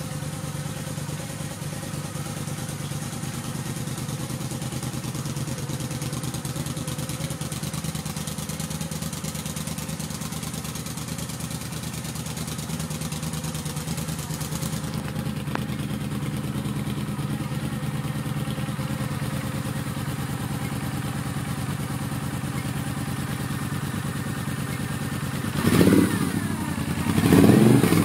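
2011 Moto Guzzi V7 Classic's air-cooled V-twin idling steadily through reverse-cone Mistral mufflers with a crossover pipe. Near the end the throttle is blipped, revving it twice.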